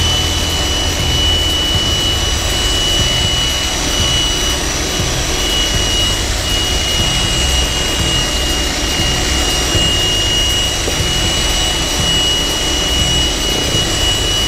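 Large electric demolition breaker (jackhammer) running flat out, its chisel pounding into a concrete block, with a steady high-pitched motor whine over the hammering.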